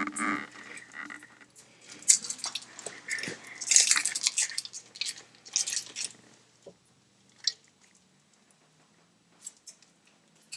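Foil wrapper of a small cheese wedge crinkling as it is peeled open by hand: a run of crackly rustles for about the first six seconds, then a few scattered soft clicks.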